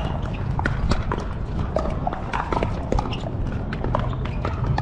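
Pickleball paddles striking hard plastic balls: many sharp, irregular pops, several a second, over a steady low rumble.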